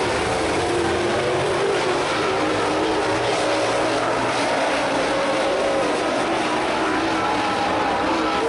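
Super late model dirt-track race cars running together at speed, several V8 engines droning at once with pitches that waver and slide as they lap the track.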